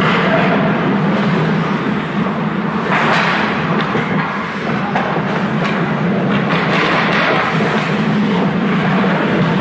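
Ice hockey play on the rink: a steady scraping rush of skates on ice, broken by a few sharp clacks.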